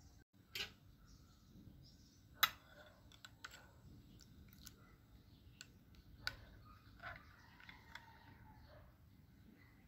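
A few scattered light clicks and taps over a quiet background, the sharpest about two and a half seconds in.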